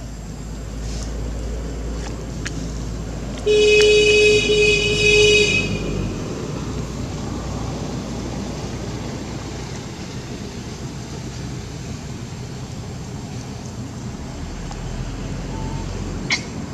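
A vehicle horn sounds two long flat toots, the first starting about three and a half seconds in, over a steady low traffic rumble.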